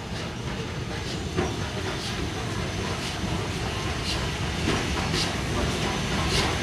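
Steam locomotive running slowly towards the listener, a steady low rumble with soft hissing beats about every half second to second, growing gradually louder as it approaches.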